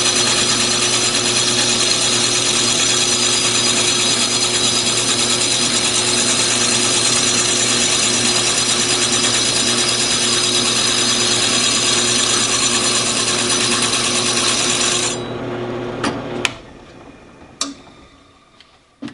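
Drill press spinning an abrasive honing disc against a drilled motorcycle brake disc: a loud, steady grinding hiss over a motor hum. About 15 seconds in the grinding stops, the motor cuts out a moment later, and a few sharp clicks follow.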